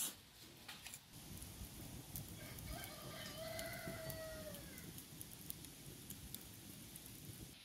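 A rooster crows once, about three seconds in: one drawn-out call that falls in pitch at the end. Around it, the faint crackle of a stick fire burning under a cooking pot.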